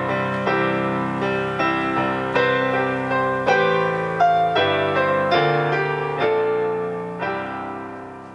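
Electronic keyboard playing in a piano voice: a slow, gentle melody over chords, notes struck every half second or so, ending on a last chord that fades away near the end.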